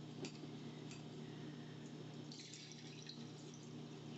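Faint dripping and trickling of water drained off anchovies through a small mesh strainer into a bowl, with a few light clicks of the bowls and strainer being handled.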